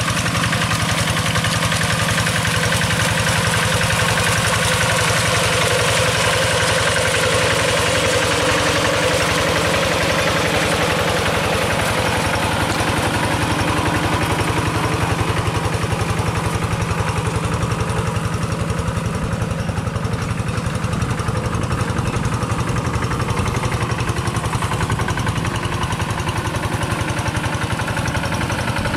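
Two-wheel hand tractor's single-cylinder diesel engine running steadily with a knocking beat as it pulls its cage wheels through paddy mud.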